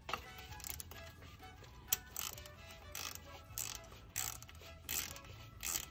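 Hand socket ratchet clicking in short, uneven strokes as it runs in a 10 mm bolt that fastens a light bracket to a steering knuckle.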